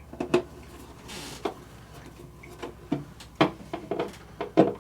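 Scattered sharp clicks and knocks of plastic and metal being handled as a GFCI receptacle and its square-holed cover plate are fitted to the wall box, with a brief scrape about a second in.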